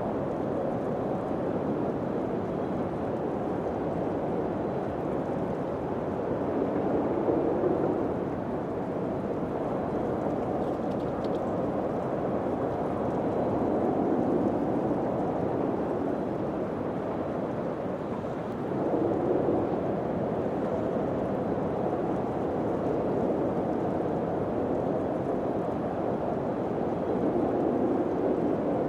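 Wind blowing in a low, steady rush that swells into gusts every several seconds.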